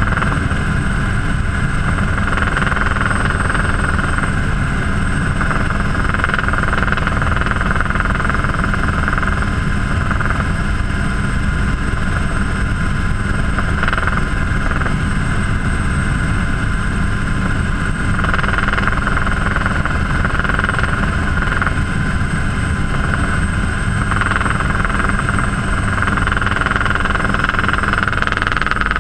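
Helicycle single-seat turbine helicopter in steady forward flight, heard from inside the cockpit: a constant turbine whine over a steady low rumble.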